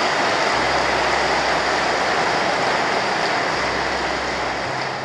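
A large audience applauding, a dense, even clapping that dies away near the end.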